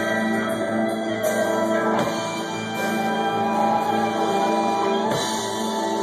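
Live band music on stage: electric bass guitar and keyboard holding long steady chords.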